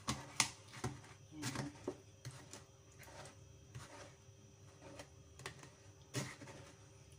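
Metal spoon scraping and tapping against a stainless steel wire-mesh strainer while pressing aloe vera gel through it: faint, irregular clicks and scrapes, with a louder click about six seconds in.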